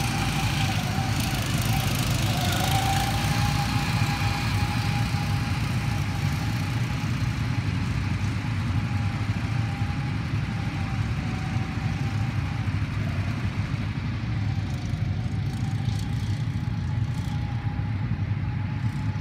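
Small go-kart engines running on the track, a steady drone whose pitch slowly rises and falls.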